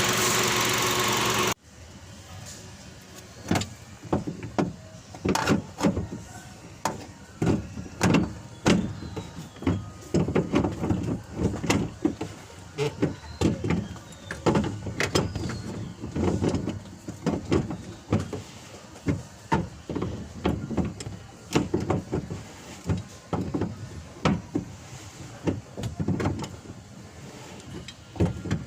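A car engine running, cut off abruptly about a second and a half in. Then irregular clicks, knocks and rattles of hand work with tools and car parts, over a faint steady hum.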